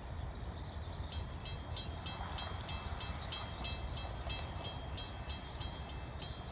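Railroad grade-crossing bell starting to ring about a second in, a steady ding about three times a second, as the crossing activates for an approaching train. A steady low rumble runs underneath.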